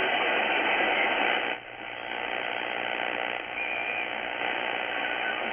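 Shortwave static and hiss from a Tecsun S-2200x receiver in lower sideband while its tuning knob is turned across the top of the 80-metre band. The audio dips sharply for a moment about one and a half seconds in.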